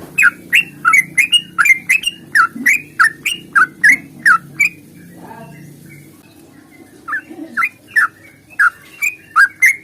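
Yellow-vented bulbul (trucukan) singing a long, rapid series of short chirping notes, about three a second, breaking off for a couple of seconds around the middle before starting again.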